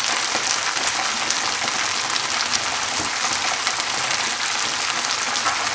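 Sliced bell peppers, spring onions and dried red chillies sizzling in hot oil in a frying pan: a steady sizzle with faint crackles.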